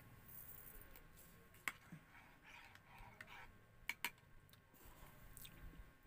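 Near silence broken by a few faint, sharp clicks: one about two seconds in and a quick pair about four seconds in.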